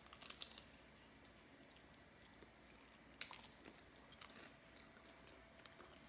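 Faint crunchy biting and chewing of pizza topped with goldfish crackers, in short crackly clusters about a third of a second in and again about three seconds in.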